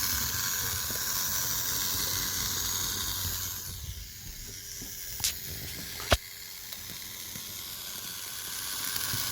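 Fleischmann BR 51 model steam locomotive running at high speed, the motor in its tender giving off a steady hissing whirr, a noise fault that the owner hopes sewing-machine oil on the motor's drive shaft will cure. The noise fades about four seconds in, with two sharp clicks, the second louder, then builds again near the end.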